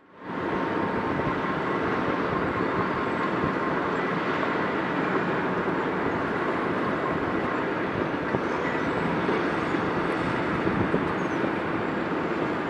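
Walking bucket wheel excavator working in an open-pit mine: a steady mechanical rumble with a faint, even whine running through it.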